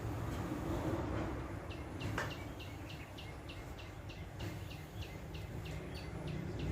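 A bird calling with a quick, regular series of short falling chirps, about three or four a second, starting a couple of seconds in, over a steady low rumble.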